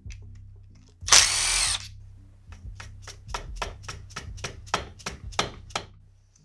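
A cordless impact driver rattles briefly on a bolt of a Honda TRX250R engine's water pump cover. Then a dead-blow hammer taps the engine cases about fifteen times, roughly four a second, to break the cover loose.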